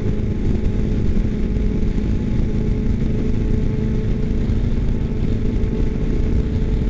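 Steady engine and exhaust drone of a cruiser motorcycle running alongside at freeway speed, heard over heavy wind noise on a motorcycle-mounted microphone and the riding bike's own engine.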